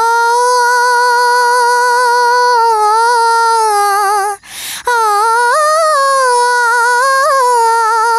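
A woman singing unaccompanied, holding two long vowel notes with a quick breath between them a little past four seconds in; the first note is steady, the second wavers and turns with ornaments.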